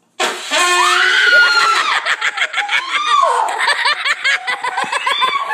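Loud, high-pitched human screaming that starts suddenly. After about two seconds it breaks into rapid pulsing shrieks mixed with laughter.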